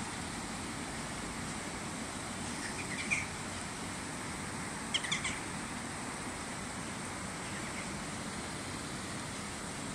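Steady rushing of fast-flowing river water through the channels of an old mill. A small bird chirps briefly about three seconds in, and again in a quick run of chirps around five seconds in.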